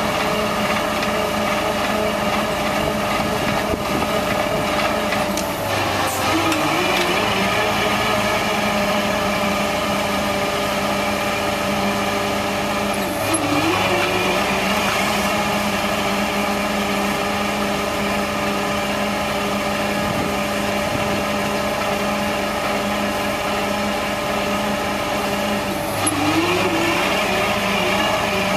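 Engine of a 1999 International digger derrick truck running steadily at a fast idle, its pitch sagging briefly and recovering three times, as when the hydraulic derrick and auger take load.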